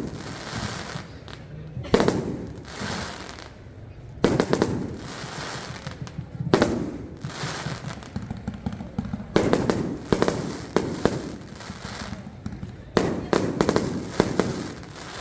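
Aerial fireworks bursting in a steady barrage: a sharp bang about every two seconds, each followed by a crackling tail, with quick clusters of several bangs in the second half.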